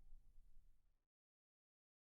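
The tail of soft piano background music fades out within the first second, then digital silence.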